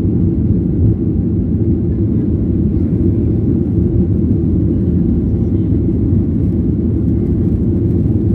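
Boeing 737-800's CFM56-7B jet engines and rushing air heard from inside the passenger cabin during the climb after takeoff: a loud, steady, deep noise.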